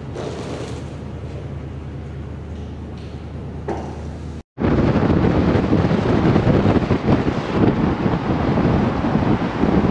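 A steady low hum, then an abrupt cut about four and a half seconds in to loud wind rushing over the microphone and road noise, as from a moving vehicle at highway speed.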